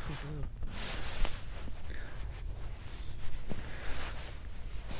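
Soft, uneven rustling of a nylon sleeping bag as a dog mouths and sucks at it, with a couple of faint clicks.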